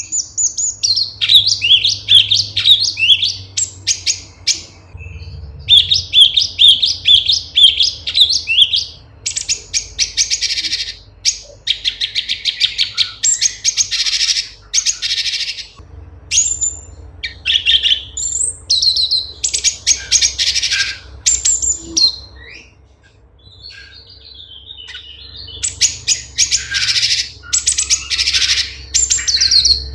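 Cucak cungkok (leafbird) singing a long, varied, high-pitched song of quick chirps, whistled trills and fast rattling note-strings, with a brief quieter lull about three quarters of the way through.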